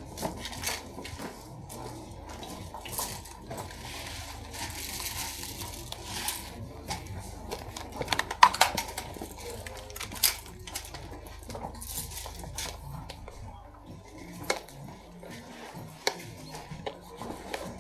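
Airsoft gunfire: scattered sharp clacks of guns firing and BBs striking cover, with a quick flurry about eight seconds in and another loud crack about two seconds later.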